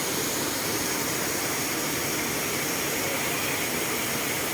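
Steady, even rush of falling water: rain and waterfall noise with no breaks or separate events.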